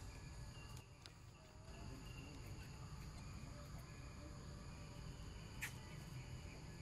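Steady, high-pitched droning of insects, with a single sharp click about five and a half seconds in.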